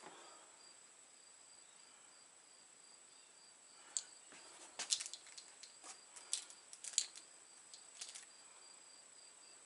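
Faint, steady, high-pitched chirping of a cricket, with a run of sharp clicks and knocks from about four to eight seconds in.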